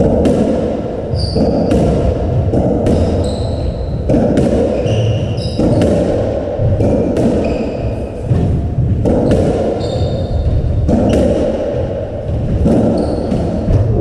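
Racketball rally on a squash court: a string of sharp hits as the ball comes off racquets, walls and floor, with short high squeaks of shoes on the wooden court floor, all echoing in the enclosed court.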